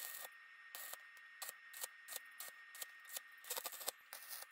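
Brief crackle of an electric arc tack weld on steel tubing, followed by scattered sharp clicks and light scraping of metal parts being handled.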